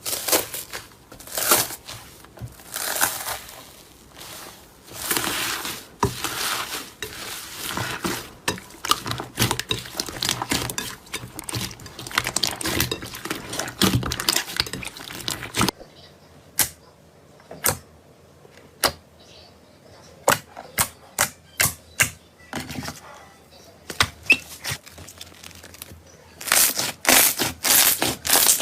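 Slime being squeezed and pressed by hand, making crackling, popping clicks. Dense crackling gives way about halfway through to single sharp pops spaced out, then turns dense again near the end.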